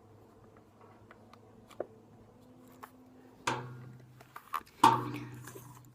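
Faint, steady low hum of a lawn mower running outside. Two sudden louder noises, about three and a half and five seconds in, each die away over about a second.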